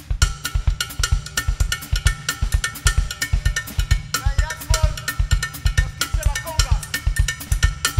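Buzin drum kit played in a fast, dense samba-style groove: the bass drum pulses steadily under quick snare and cymbal strokes. A few pitched sounds glide in and out above the drums.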